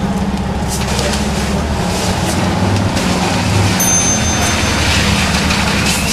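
A fire engine's diesel engine running steadily with a low drone, under a constant hiss.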